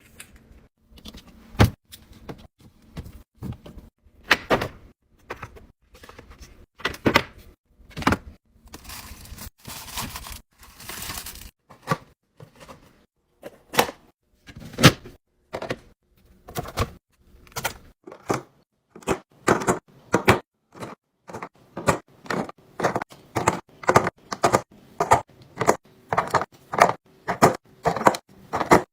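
Items and containers being handled and set down while restocking a fridge: a series of sharp clicks and knocks of plastic and glass. A few seconds of hissy noise come around ten seconds in, and the second half brings a quicker, even run of taps, about two a second.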